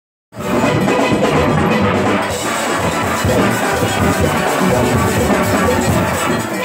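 A steel orchestra playing live, many steelpans sounding together in a dense, continuous band sound that cuts in abruptly a fraction of a second in.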